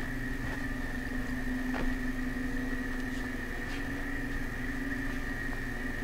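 Steady industrial machine hum, with a low tone and a higher whine held level over a low rumble, and a few faint knocks.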